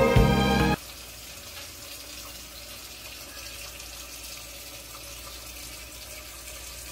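A song with singing cuts off abruptly less than a second in, leaving a steady faint hiss.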